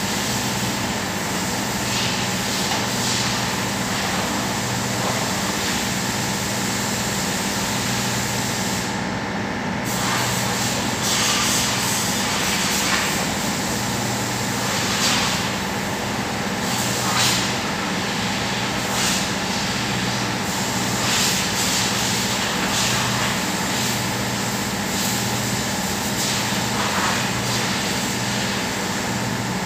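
Steady machine noise: a continuous low hum under a broad hiss, with a few brief louder swells.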